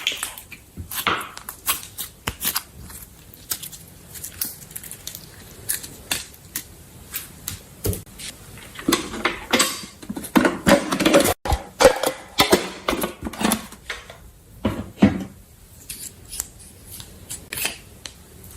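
Slime being handled: irregular sticky squelches and clicks, thickest in the middle.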